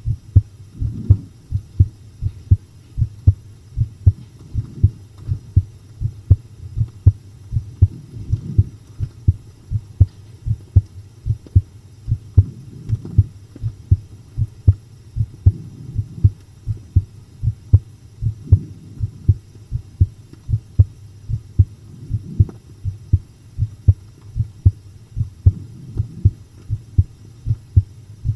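Human heartbeat heard close up, a steady run of paired lub-dub thumps over a low rumble.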